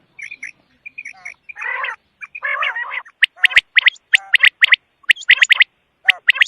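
Quail calling: short sharp notes, then two harsh rasping calls about two seconds in, followed by a quick series of sharp, clipped calls.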